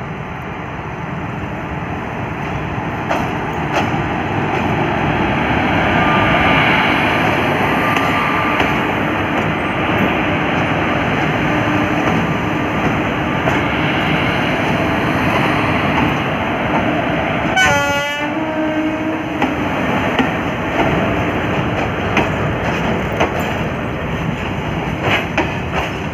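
Twin Indian Railways electric locomotives and their train passing close by: a steady rumble of wheels on rail with a motor hum. About eighteen seconds in a train horn sounds briefly, and near the end the wheels clack over rail joints.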